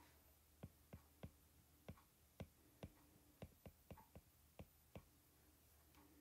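About a dozen faint, sharp, irregular taps of a stylus tip on an iPad's glass screen while numbers are handwritten.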